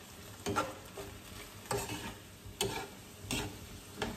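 Shrimp and vegetables in sauce being stirred in a skillet. A utensil knocks and scrapes against the pan about once a second, over a faint sizzle.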